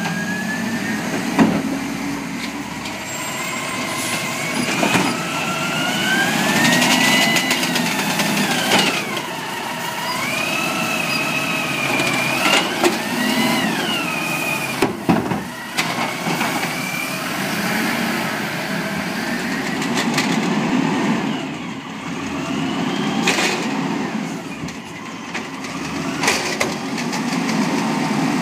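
Automated side-loader garbage truck running while its hydraulic arm lifts and dumps a wheeled bin: a whine that rises and falls in pitch over the engine's running, with several sharp bangs of the bin and arm against the truck.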